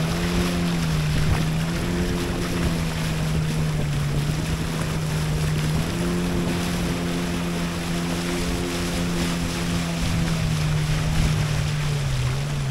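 Outboard motor of a river longboat running steadily under way. Its drone dips slightly in pitch about a second in, again around the middle, and near the end. Water rushes along the hull under a steady hiss of wind.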